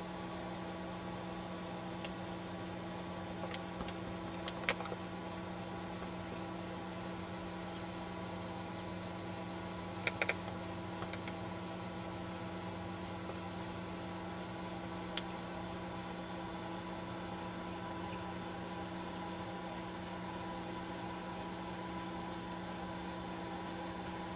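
Steady low electrical hum, with a few light clicks scattered through it, a small cluster of them about ten seconds in.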